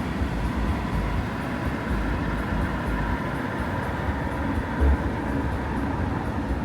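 Steady low rumble of a moving vehicle, with a faint steady tone above it.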